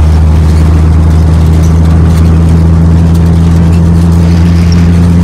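A vehicle's engine and tyre noise heard from inside the cab as it cruises steadily along an asphalt road. It makes a constant low drone that does not change in pitch.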